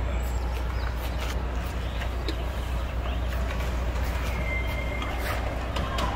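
Low steady rumble of a box truck's engine running in the street, under general traffic noise with scattered light clicks.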